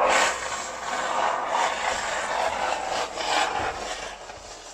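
A can of expanding foam spraying into gaps in van wall insulation: an uneven hiss that rises and falls and tails off near the end.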